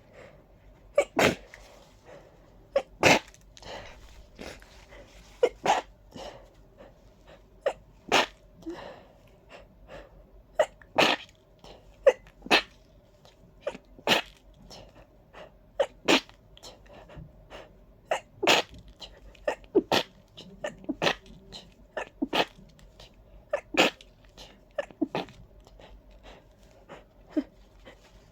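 A person sneezing over and over in a persistent fit, a dozen or so sharp sneezes every second or two with quieter ones in between, brought on by a ragweed allergy.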